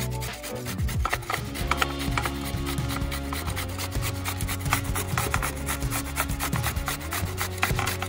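A peeled green vegetable rasped up and down a stainless-steel box grater in quick, repeated strokes, shredding it onto a steel plate.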